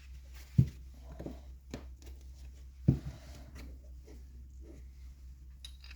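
Parts being handled during assembly: two sharp knocks, about half a second and three seconds in, among lighter clicks and taps, over a steady low hum.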